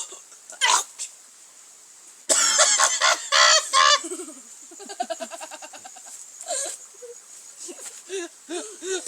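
A person coughing in an exaggerated, voiced way: a loud run of coughs starting about two seconds in, then a fast stuttering string of short pulses, with softer scattered coughs near the end.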